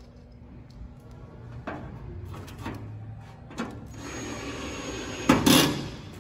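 Handling noises as a plastic ignition power module is fitted on a gas grill's sheet-metal cabinet panel: scattered knocks and clicks with some rubbing, then a louder knock and scrape a little after five seconds in.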